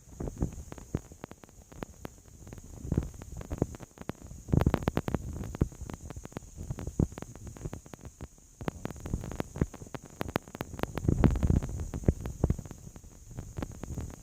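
Electric shaver running, with irregular rubbing, rustling and low rumbles as it is moved about, and scattered short clicks.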